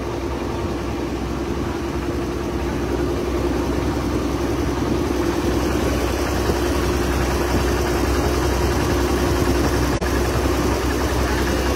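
Boat engine running steadily at cruising speed, a constant droning hum, with the rush of wind and water past the hull heard from on board.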